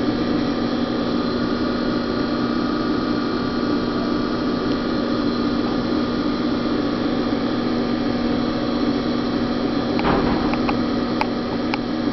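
Electric potter's wheel running at high speed as wet clay is centered under both hands: a steady motor hum, with a few light clicks near the end.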